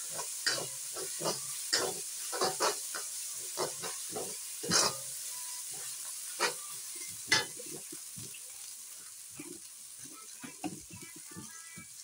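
Metal spatula scraping and knocking against a stainless steel wok as a red paste sizzles in hot oil. The strokes come irregularly and thin out after about eight seconds, leaving the steady sizzle.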